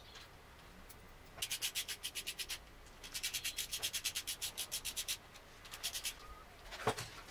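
A hand tool scrubbed rapidly back and forth against a car's differential housing, about eight strokes a second, in two runs with a short break between them. A knock near the end.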